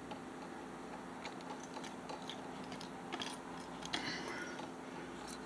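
Faint, light clicks and taps of a miniature hammer being handled and set into a small wooden toolbox, a few scattered knocks, with a faint steady hum underneath.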